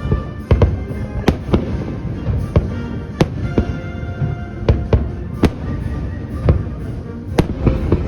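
Fireworks display with shells bursting in irregular sharp bangs and cracks, about a dozen in the span, over music.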